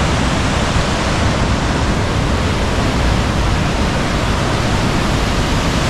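Fast-flowing river water and a waterfall in full spate: a loud, steady rush of white water.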